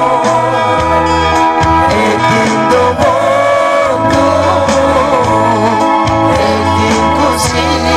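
A man singing live into a microphone over amplified instrumental backing music with guitar and a bass line.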